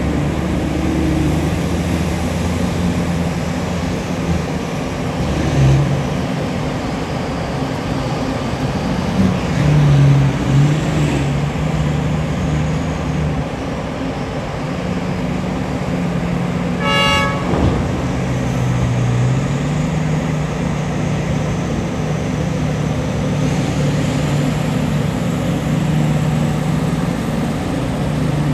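Heavy diesel engines of a Liebherr R9350 hydraulic excavator and a mining dump truck running under load, the engine note rising and falling as the machines work. A single short horn blast sounds about seventeen seconds in.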